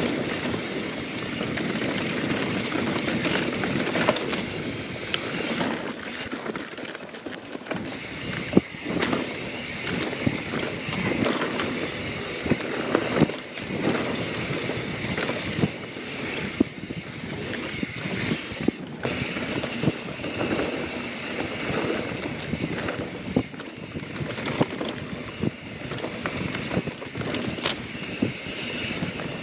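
YT Jeffsy 27 mountain bike riding down a dirt trail: a steady rumble of tyres rolling over dirt and rock, with frequent sharp knocks and rattles from the bike and chain.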